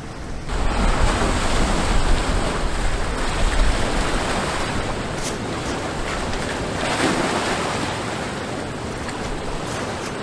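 Ocean surf washing steadily on a rocky shore, with wind rumbling on the microphone for the first few seconds.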